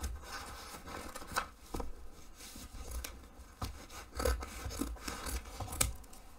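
Scissors cutting through printed fabric along the edge of a paper sewing pattern: a run of irregular snips.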